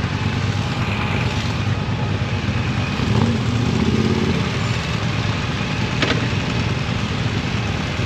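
Motorcycle engine running steadily with a continuous low rumble, and a single sharp click about six seconds in.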